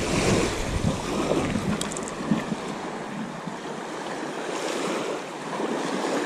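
Small waves washing onto a sandy shore, a steady surf noise, with a low buffeting on the microphone during the first second.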